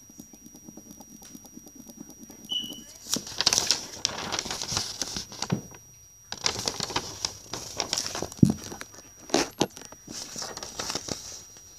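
Sheet of drawing paper rustling and crinkling right against the microphone as it is handled and moved about, in irregular bursts that start about three seconds in.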